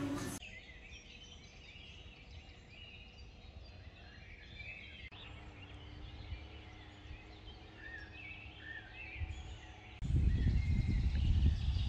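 Quiet outdoor ambience with small birds chirping and calling in short phrases. About ten seconds in, a loud low rumbling noise starts abruptly and continues.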